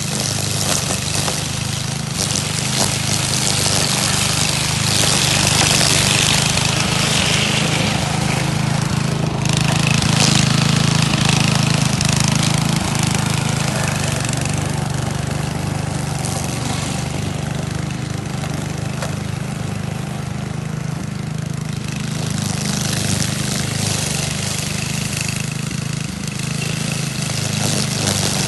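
Cub Cadet wheeled string trimmer running steadily under load as its spinning line cuts through tall grass and weeds. A hissing swish of cutting swells and fades several times as it pushes into thicker growth.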